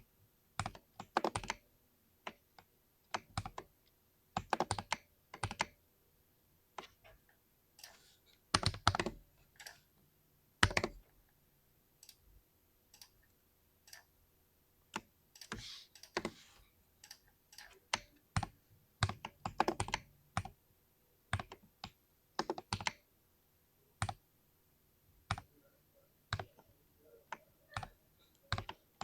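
Budget mechanical keyboard with linear switches being typed on: clusters of quick keystroke clacks in irregular bursts, with short pauses between them.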